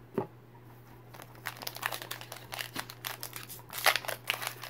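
Foil wrapper of a Pokémon trading-card booster pack being torn open and crinkled by hand. Dense crinkling starts about a second and a half in and grows, loudest near the end, after a single soft knock just after the start.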